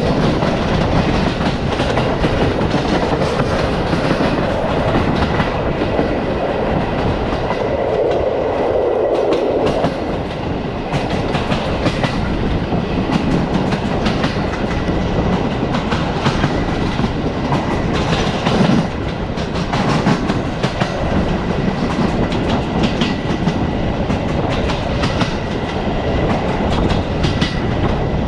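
Passenger train running along the track, heard from a carriage: steady rolling noise with wheels clicking and knocking over rail joints, and a faint steady high whine.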